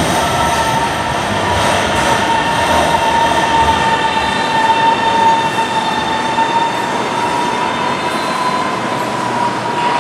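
Guangzhou Metro Line 3 train running into the station, a loud steady rumble with a high whine held nearly level throughout.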